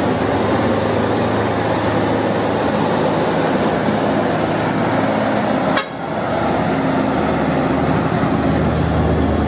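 Heavy diesel trucks, a red Hino at the front, passing close by: a steady engine drone with tyre and road noise. The sound breaks off sharply about six seconds in, then picks up again.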